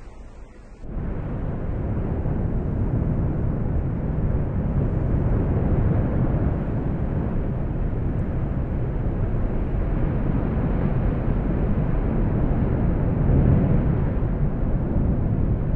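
Lava fountains along an erupting volcanic fissure, giving a steady low rumble that starts suddenly about a second in.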